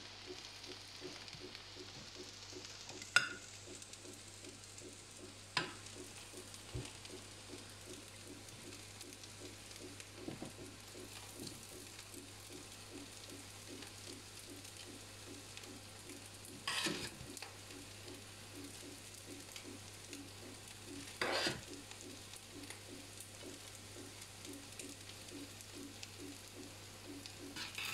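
Metal spoon scooping cooked fried rice out of a stainless steel pot and onto a plate: soft scraping with four sharp clicks of the spoon against the pot and plate, over a low steady hum.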